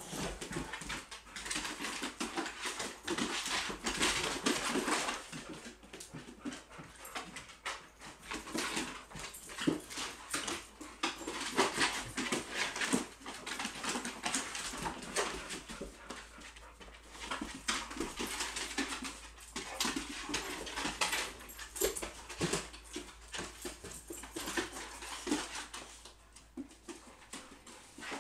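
A boxer and a pit bull puppy play-fighting on a hardwood floor: irregular scuffling and many quick clicks of claws and paws on the boards, with the dogs' own play noises mixed in, in uneven louder spells.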